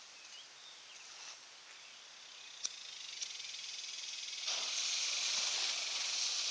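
A replica Civil War cannon's fuse hissing as it burns, starting with a sharp click and growing louder over the last two seconds, with no shot following: a misfire.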